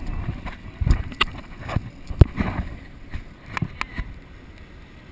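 About half a dozen sharp knocks and bumps at irregular intervals, the loudest about two seconds in, over a low rumble.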